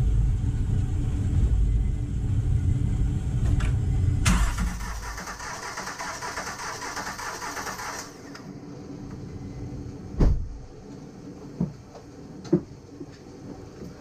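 V6 engine cranking on the starter for a compression test of cylinder 4, a low pulsing rumble that stops about four seconds in. Then a sharp hiss for about four seconds as the compression gauge's pressure is let out, followed by a few light clicks and knocks of tools being handled.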